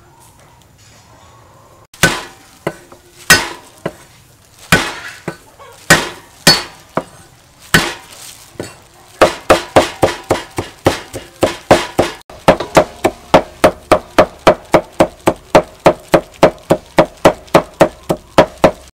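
Steel cleaver chopping garlic cloves on a thick round wooden chopping block. A few heavy, spaced chops come about a second apart starting about two seconds in. From about nine seconds on it turns into fast, even mincing at three to four strokes a second.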